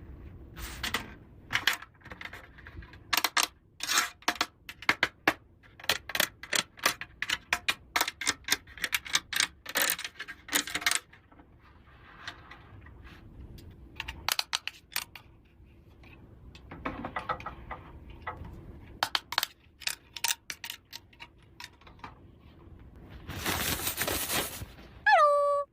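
Small plastic toy pieces clicking and clattering as they are handled and set down, in quick irregular taps. Near the end a longer rustle, then a short squeak that drops in pitch.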